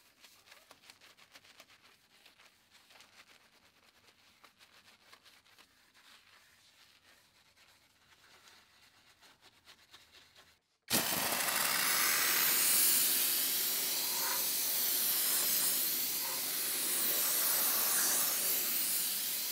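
Faint scratching of a detailing brush scrubbing foamed cleaner on engine-bay panels, then a sudden change about eleven seconds in to the loud, steady hiss of a steam cleaner's jet, which stops just before the end.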